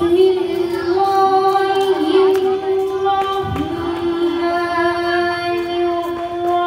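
A female voice chanting Qur'anic recitation in the melodic tajweed style, holding long drawn-out notes with a short break and a slide in pitch about halfway through.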